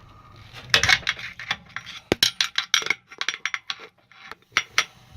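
A hand tool working at the metal clamp that holds a direct-drive washer's motor: an irregular string of sharp metallic clicks, clinks and scrapes, bunched in several short clusters.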